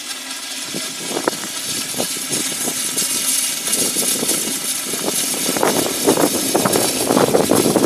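A small narrow-gauge steam tank locomotive and its train running, a steady mechanical hiss and rumble with scattered clanks that grow busier toward the end.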